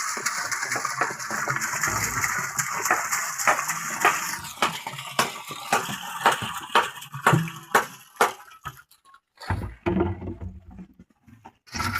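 Manual construction work: a scraping, rushing noise dense with clicks, then separate knocks about two or three a second after about four seconds, and a few low thuds near the end.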